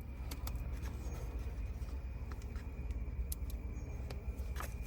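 A few faint clicks and taps as a phone charging cable is handled and plugged into a newly installed USB charger port, over a low steady hum.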